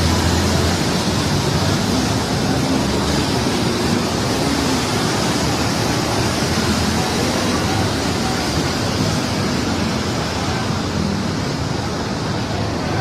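Steady, loud rushing of surging water, an unbroken roar with no distinct strokes or breaks.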